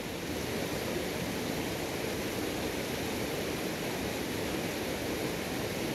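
Steady rushing of a small river's water flowing over rocks.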